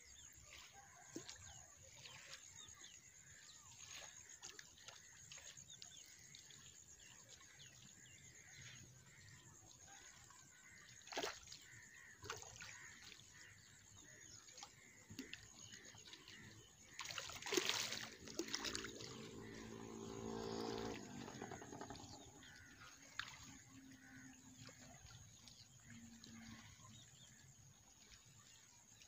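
Faint sloshing and splashing of water at the bank's edge as a hooked black carp is landed by hand, with one louder splash about two-thirds of the way through. A short pitched call follows it, and there are faint clicks here and there.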